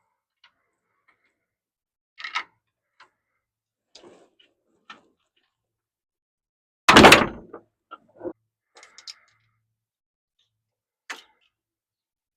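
Scattered light clicks and knocks, with one loud bang about seven seconds in, followed by a few smaller knocks.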